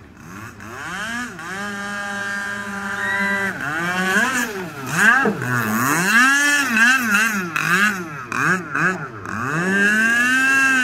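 Radio-controlled speedboat's motor running at speed across the water. Its pitch holds fairly level for a couple of seconds, then rises and falls over and over as the boat runs and turns, with a long rise near the end.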